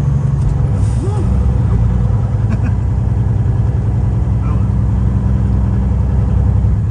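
Semi truck's diesel engine running under power, heard from inside the cab, its note changing about a second in and then holding steady.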